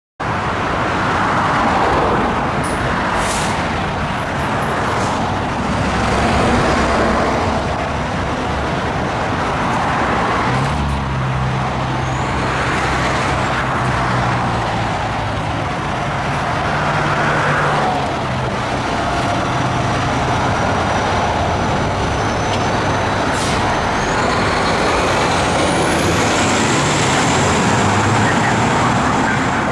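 2017 Ferrara Ultra fire engine's diesel engine running as the truck pulls out of the firehouse and drives off.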